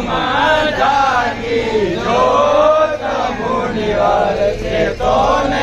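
A crowd of men and women chanting a devotional refrain together, loud and in unison, in phrases with short breaks between them.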